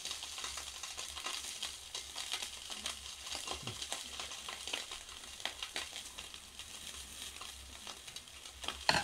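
Slices of beef sizzling in a frying pan on a portable gas stove: a steady crackle with many small pops. A brief louder sound comes right at the end.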